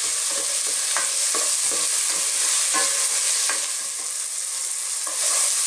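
Onion, tomato and carrot sizzling in hot oil in a pot, with a spatula scraping and knocking against the pot about once a second as they are stirred.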